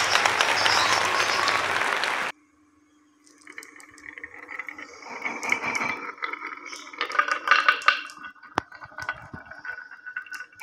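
A loud, dense rushing noise for about two seconds that cuts off suddenly. After a short pause, glass marbles roll down a wooden zigzag marble track, clicking and clinking against each other and the wood in quick irregular strings.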